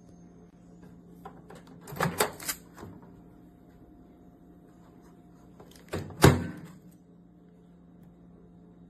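Microwave oven door handled: a quick run of sharp clicks about two seconds in, then a louder single knock about four seconds later, over a faint steady hum.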